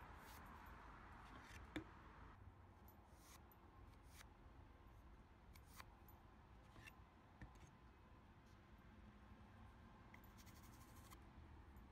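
Very faint pencil marking on a pine board: a few light ticks and clicks, then a short run of quick pencil strokes near the end.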